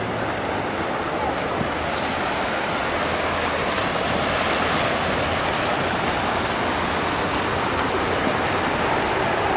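Whitewater rushing steadily down an artificial slalom channel, an even roar of churning water.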